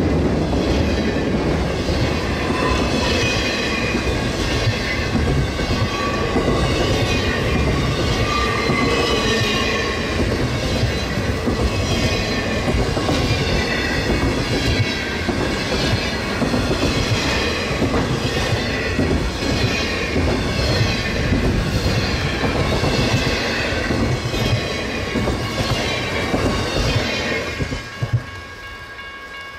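Intermodal freight cars loaded with trailers and containers rolling past at speed: a dense rumble with a steady rhythmic clatter of wheels over the rail and wavering high wheel squeals. About 28 seconds in the last car goes by and the noise drops sharply, leaving a faint steady tone.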